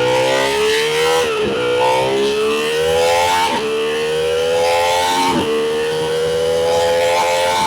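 Ducati Panigale V2 V-twin engine accelerating hard through the gears: the pitch climbs, drops sharply at three upshifts about two seconds apart, then climbs more slowly again.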